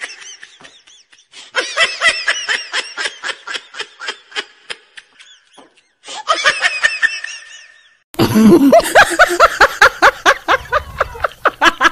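Laughter, a rapid ha-ha-ha in several stretches with short gaps. The last stretch, starting about eight seconds in, is the loudest and cuts off sharply.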